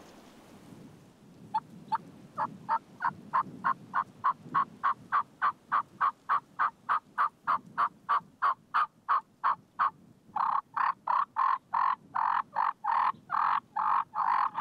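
A long, even series of turkey yelps, about four or five a second, with a short break about ten seconds in before the yelping resumes louder.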